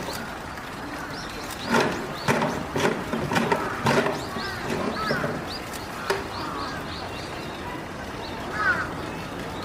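Small birds chirping repeatedly in short high calls, over a background murmur of people's voices, with a few brief louder bursts about two to four seconds in.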